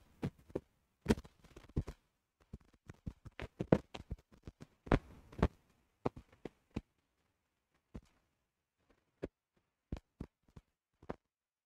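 Scattered short clicks and taps at irregular intervals, closer together in the first half and sparser towards the end.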